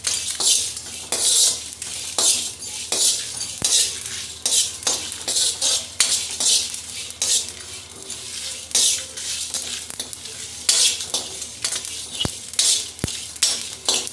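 Steel spatula stirring and scraping whole spices (coriander seeds, fennel, dried red chillies) around a dry kadhai. The seeds rattle with each stroke, about one or two strokes a second, with occasional sharp clinks of metal on metal. The spices are being dry-roasted on low heat until fragrant.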